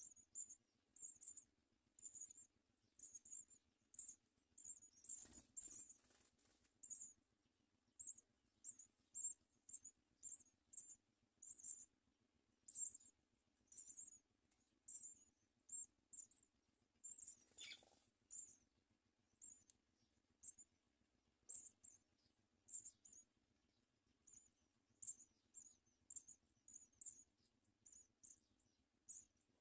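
House sparrows at the nest giving short, high cheeps, a few a second in irregular runs, with a couple of brief rustles.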